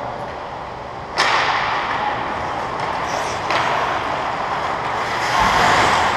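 Hockey skate blades scraping the ice: a sudden sharp scrape about a second in, then a steady hiss of blades on ice, with another scrape later and a low thud near the end.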